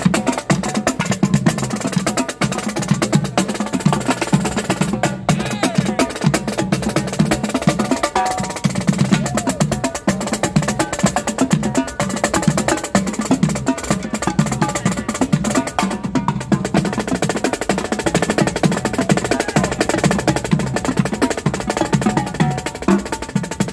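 Marching snare drums and a set of tenor drums playing a fast, continuous drum-corps cadence, with rolls and many rapid strikes.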